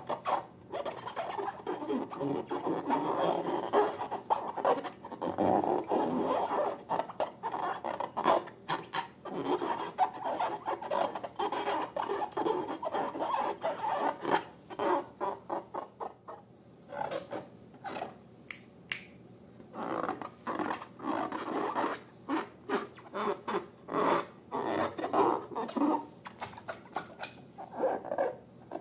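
Slime being squeezed and worked by hand: a dense, irregular run of small crackles, squelches and rubbing noises.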